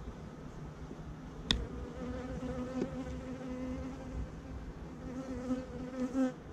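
A honeybee buzzing close to the microphone: a steady low hum from about two seconds in that wavers in pitch as it flies about. Just before it starts, one sharp knock.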